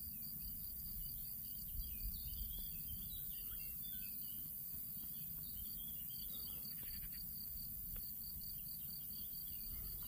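Meadow ambience: an insect's high, fast-pulsing chirring runs steadily throughout, with birds chirping now and then in the first seven seconds over a low rumble.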